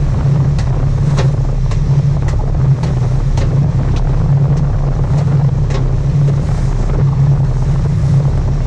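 A sport fishing boat's engine runs with a steady low drone, with wind buffeting the microphone. Over it come about ten sharp clicks or knocks at a fairly even pace, roughly one every half second, stopping about six seconds in.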